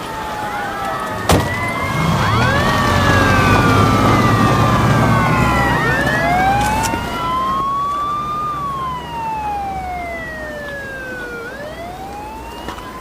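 Several police car sirens in the Japanese drama style wailing together, their slow rising and falling pitches overlapping, over a low rumble that is loudest in the first half. A sharp click comes about a second in, and near the end the sirens thin out to a single wail.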